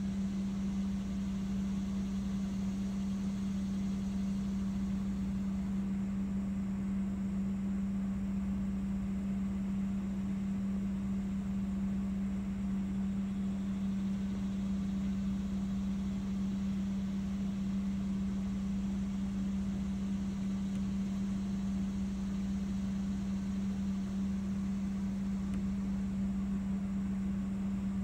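A machine running with a steady, unchanging low hum.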